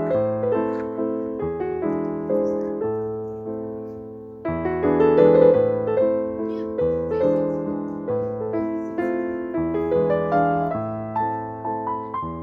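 Background piano music: soft notes that strike and fade, one phrase dying away about four seconds in before a louder phrase begins.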